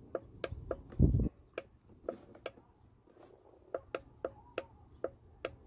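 Light, slightly irregular ticking, about three to four clicks a second, with one dull thump about a second in as the plastic battery pack is handled.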